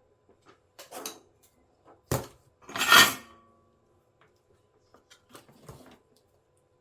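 Metal hand tools being handled and set down on a workbench during soldering work: a clatter about a second in, a sharp knock, then a loud metallic clatter about three seconds in that rings briefly, followed by a few small clicks near the end.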